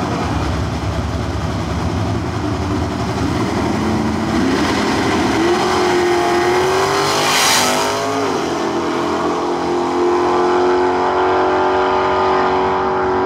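Drag race car engine launching off the starting line at full throttle, climbing in pitch to its loudest about seven and a half seconds in, then dropping sharply in pitch and holding a steady high-revving note as it runs down the track.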